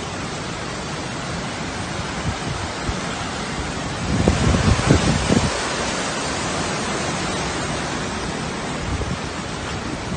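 Hurricane wind and rain making a steady rush of noise, with stronger gusts buffeting the microphone about four to five seconds in.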